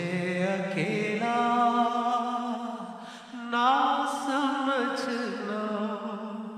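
A naat, a devotional song in praise of the Prophet, sung a cappella: one voice holding long, wavering melodic notes over a steady low hum.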